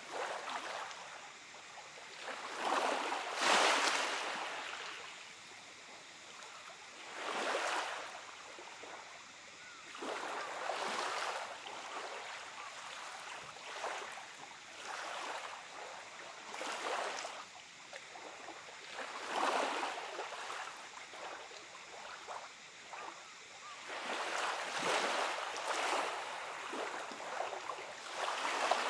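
Small waves from a calm sea lapping onto a gravelly beach, each wash a swell of hiss every few seconds. The loudest wash comes about three and a half seconds in.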